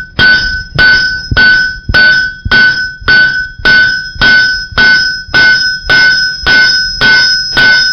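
Blacksmith's hand hammer striking hot iron on an anvil in a steady rhythm, about two blows a second, each blow followed by a clear ringing from the anvil. The glowing end of the bar is being flattened out to form a spoon bowl.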